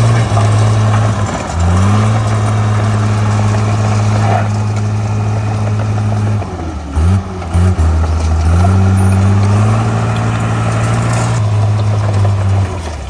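Caterpillar D3C bulldozer's diesel engine running steadily under load. Its pitch dips and recovers briefly about a second and a half in, and again between about six and a half and eight and a half seconds.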